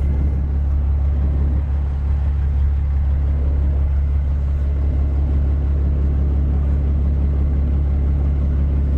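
Semi-truck's diesel engine running steadily, heard from inside the cab: a constant low drone.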